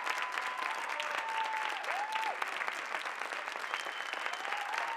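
Theatre audience applauding steadily after a dance performance, with a few held cheering calls rising and falling over the clapping.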